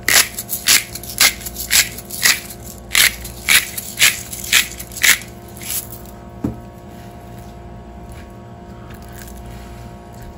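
Salt shaker shaken over raw steaks in a steady rhythm, about two shakes a second for some six seconds, followed by a single knock.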